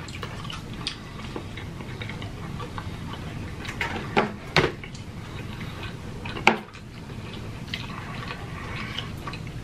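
Close-up eating sounds of pizza being chewed, with small wet mouth clicks and a few sharper clicks and taps, the loudest about six and a half seconds in, over a steady low hum.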